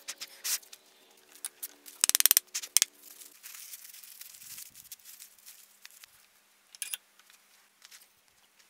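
Workbench handling noises around a bench vise: scattered sharp clicks, then a quick loud run of clicks about two seconds in as the vise is opened, followed by newspaper rustling as the wooden handle is unwrapped. A faint steady hum stops about three seconds in.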